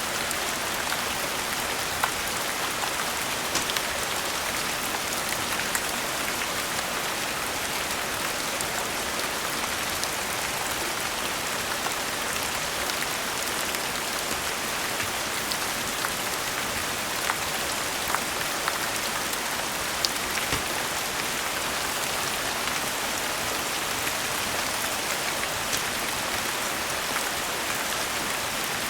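Steady rain falling, an even hiss of drops on surfaces, with a few sharp pops of a crackling fireplace scattered through it.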